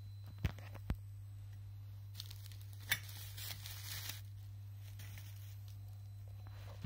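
Sharp clicks from a Geiger counter wired to an SI-22G Geiger–Müller tube, two in the first second and another near three seconds in, over a steady low electrical hum. A crinkling rustle runs from about two to four seconds in.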